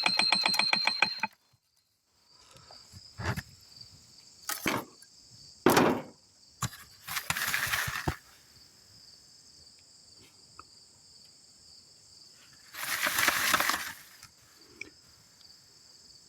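The charcoal grinder runs with a fast, even clatter and stops suddenly about a second in. After that, crickets chirp steadily, broken by several short noisy rustles and knocks.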